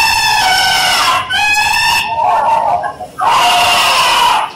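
Robotic elephant toy playing its built-in electronic sounds through its small speaker while it walks: high-pitched calls, each about a second long, with short breaks between.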